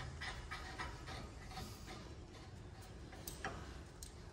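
Faint, irregular light clicks and ticks of metal parts being handled as a disc brake caliper is fitted over the rotor onto the spindle.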